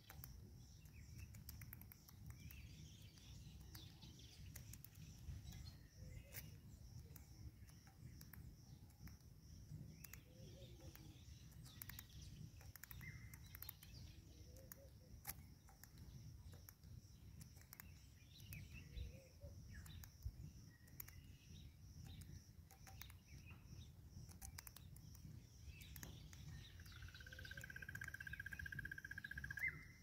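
Faint outdoor ambience: insects shrilling steadily, with many small sharp clicks as a southern red-billed hornbill pecks seed on a stone feeder, and scattered faint bird chirps. Near the end a rapid trilled bird call grows louder for about three seconds.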